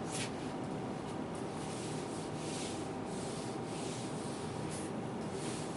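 Short, soft wiping strokes of a hand rubbing across a board surface, erasing marker annotations.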